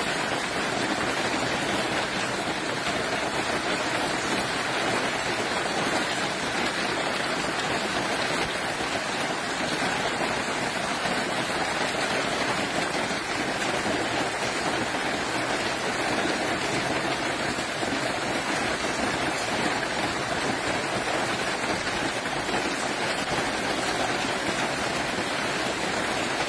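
Steady, even rush of water, unbroken and at a constant level, of the kind made by a heavy downpour or running floodwater.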